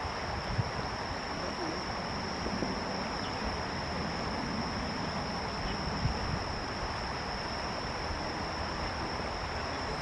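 Insects trilling in one continuous, even, high-pitched tone, over a steady rushing hiss of outdoor background noise.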